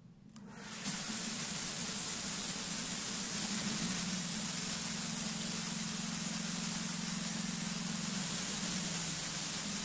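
Harbor Freight 13 HP 420cc single-cylinder gasoline engine on a bandsaw mill starting up about half a second in and then running steadily: a loud hissing roar over a low hum that settles to a steadier pitch in the middle.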